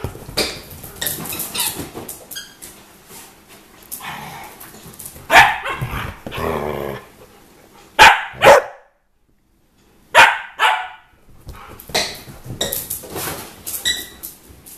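Pet dogs barking at play, excited by a squeaky rubber toy: a string of loud, short barks, several in quick pairs, with quieter scuffling and yips between.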